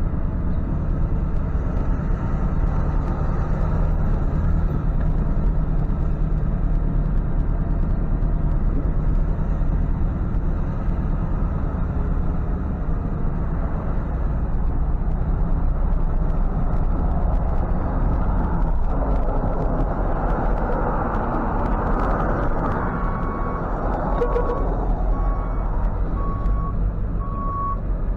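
Tow truck's engine running steadily, swelling louder and rougher through the middle. About two-thirds through, the truck's reverse alarm starts beeping, one even high beep a little over a second apart.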